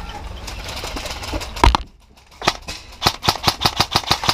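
A single sharp bang about a second and a half in, then a rapid run of airsoft gunshots, a quick regular string of cracks at about eight a second towards the end.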